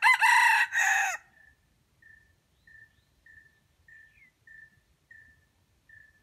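A wild junglefowl rooster crows once, a short crow that ends about a second in. Then a faint high peep at one steady pitch repeats about every half second.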